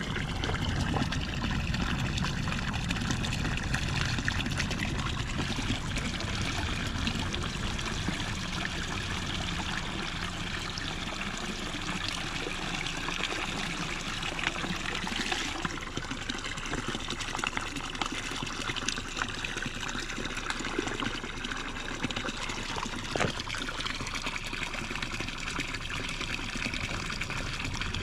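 Spring water pouring steadily from a hose spout and splashing into a shallow pool, with a soft plastic water bottle held under the stream and filling.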